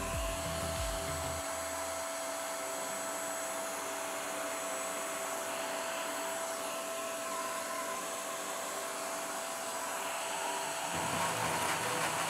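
The 300 W spindle of a CNC router running at a steady speed, giving a steady high whine. Near the end a lower rumble joins in and the sound gets a little louder.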